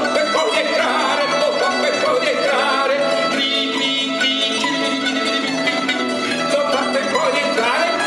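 Lyre-shaped guitar (chitarra lyra) plucked and strummed in a lively folk-song accompaniment, with quick runs of notes.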